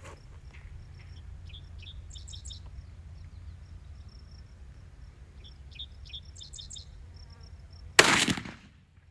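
A single loud .25-06 rifle shot about eight seconds in, sharp with a short decaying tail. Before it, birds chirp in short bursts over a steady low background.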